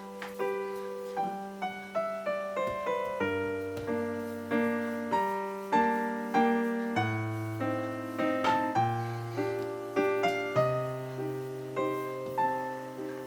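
Background music: solo piano playing a light tune, its notes struck in a steady rhythm over a moving bass line.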